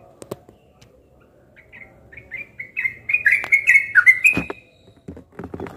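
Yellow-vented bulbul singing a quick run of about a dozen short, bright chirping notes that grows louder over about three seconds. A few dull knocks follow near the end.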